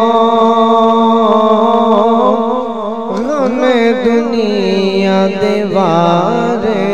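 Male voice singing a long, drawn-out melismatic phrase of a Punjabi devotional lament for Imam Husayn. Held, wavering notes give way to quick ornamented runs about halfway through.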